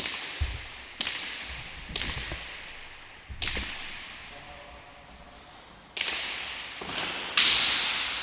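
Hand-pelota ball smacking off players' hands and the fronton's walls and floor: sharp cracks about once a second, each with a long echoing tail, a pause in the middle, then a quicker run of hits with the loudest near the end.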